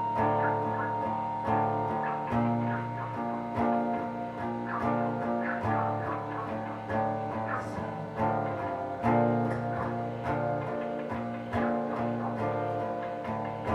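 Guitar music: plucked and strummed guitar chords with low bass notes changing every second or so.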